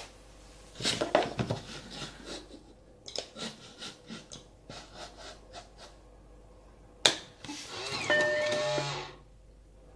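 Clicks of a Macintosh 512Ke's mouse, with one sharp click about seven seconds in, then the floppy drive whirring for about a second as it ejects the disk.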